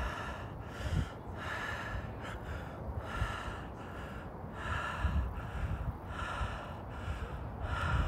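A person panting hard and fast close to the microphone, one quick heavy breath in or out about every half second to second. The breathing is that of someone out of breath from hard exertion, their lungs burning.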